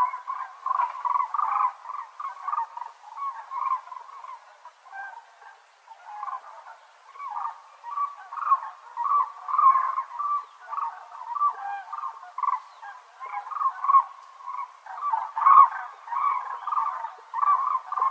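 Cranes calling: many short calls in quick, overlapping succession, as from a group of birds.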